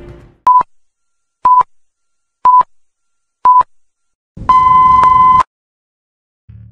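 Film-leader countdown beeps: four short beeps a second apart, then a longer beep at the same pitch about a second later.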